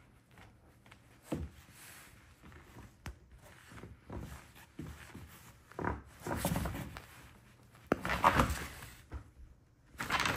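A puppy playing tug-of-war with a plush rope toy on bedding: scuffling and fabric rustling in scattered bursts, with a thump about a second and a half in and louder bouts of tugging around six and eight seconds in.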